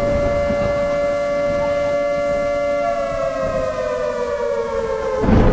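A siren-like howling tone with overtones, held steady and then slowly falling in pitch from about three seconds in, over a low rumbling noise.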